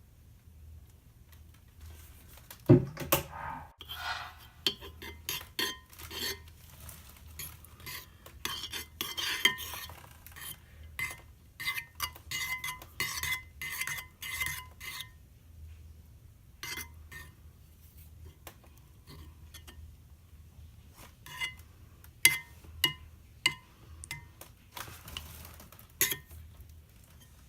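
A utensil clinking and scraping against a bowl while slime ingredients are stirred, in irregular bursts. There is a loud knock about three seconds in and a lull in the middle.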